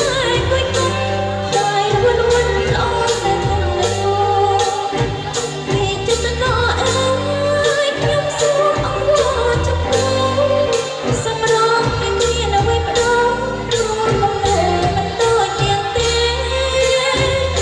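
Khmer dance song with a singer over a band, a steady bass and a high tick on the beat about twice a second.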